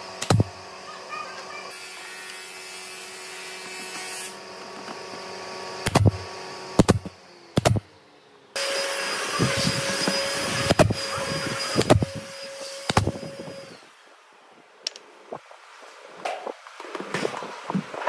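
Small electric power tools running in two steady stretches, each with a hum, broken by an abrupt change about eight and a half seconds in, with sharp knocks and clicks scattered throughout.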